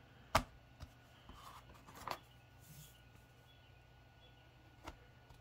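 Thin laser-cut wooden wall pieces clicking and knocking as they are pressed into the slots of a wooden base, with light handling rustle between. A sharp click comes about a third of a second in, with two more knocks around two seconds in and near the end.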